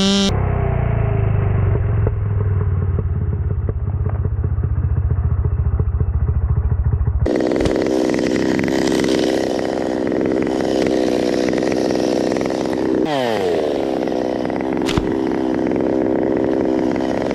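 Chainsaw engine running steadily, changing character sharply about seven seconds in; its revs drop about thirteen seconds in, then it runs on.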